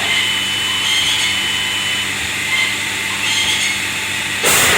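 Steady machine noise with a low hum and a thin high whine, swelling now and then, and a short loud rush of noise near the end.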